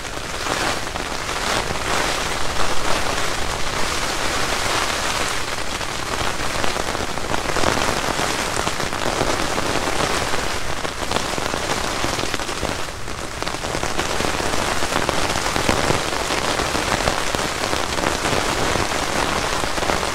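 Rain falling steadily on a nylon tent rain fly, heard from inside the closed tent, swelling and easing a little.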